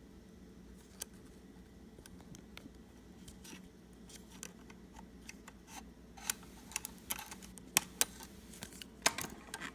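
Light clicks and ticks from a sewing machine being worked by hand, sparse at first and coming faster and louder in the second half, over a low steady hum.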